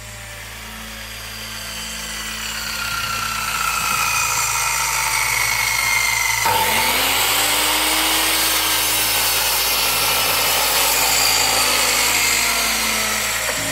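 A woodworking power tool runs and cuts into timber. The sound fades up over the first few seconds, then holds steady and loud. About six and a half seconds in, the cut changes abruptly.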